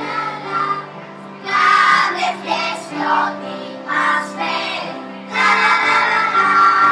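Children's choir singing a Christmas song together over steady instrumental accompaniment, the voices swelling louder in phrases.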